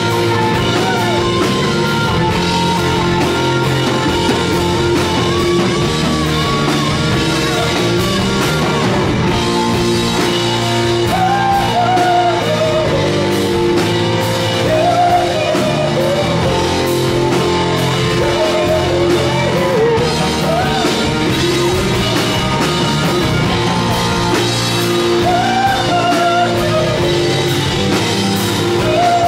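Live rock band playing loud, with drums, bass and electric guitars; a lead line bends up and down in pitch over the steady band.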